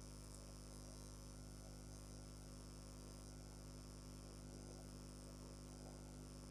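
Near silence, with only a faint steady electrical mains hum and light hiss from the recording.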